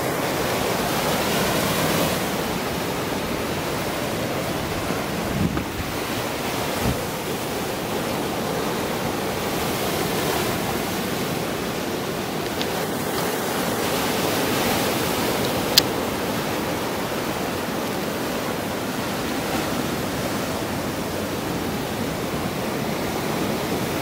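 Sea surf breaking and washing over shore rocks in a continuous rushing wash that swells and eases slightly. A few brief clicks, the sharpest about two-thirds of the way through.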